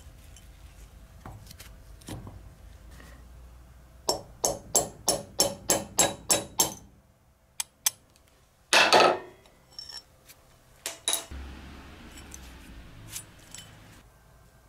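Hammer striking a steel pin punch set in a Velosolex rear wheel hub: about nine quick, ringing metal blows, roughly three a second, then a couple of lighter clicks. About nine seconds in comes a brief, loud rushing noise, followed by a few scattered metal clicks.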